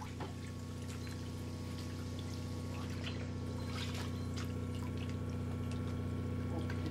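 Water sloshing, trickling and dripping in a drilled ice hole as a Weddell seal dives down through it, over a steady low hum.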